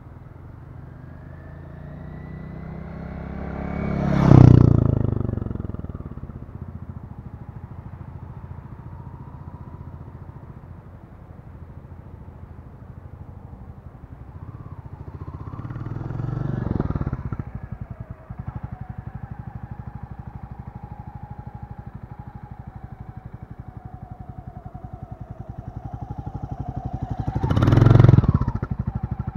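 Royal Enfield Classic 350's single-cylinder engine as the motorcycle rides past close by twice, about four seconds in and again near the end, each time rising to a peak and falling away. A quieter vehicle passes around the middle.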